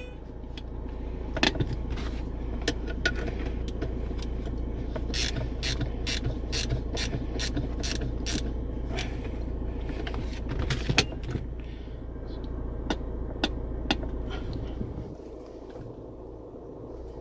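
Alfa Romeo 156 engine running at idle, with a quick run of sharp metallic ratchet-like clicks as the handbrake is adjusted; the engine hum stops about fifteen seconds in.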